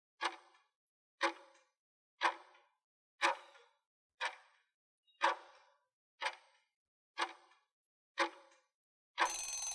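Quiz countdown timer sound effect: a clock-like tick once a second, nine ticks in all, then a longer, denser sound about nine seconds in as the count runs out.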